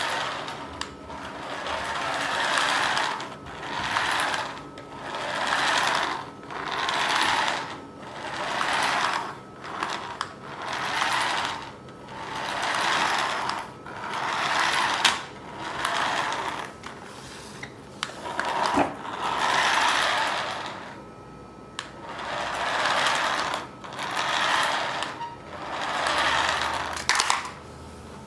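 Toy remote control car's small electric motor and plastic gears whirring in repeated bursts, each swelling up and dying away, about one every one and a half seconds.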